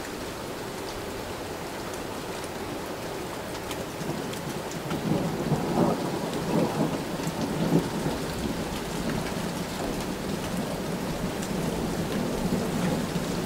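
Rain falling steadily, with a rumble of thunder swelling about five seconds in and easing after a few seconds.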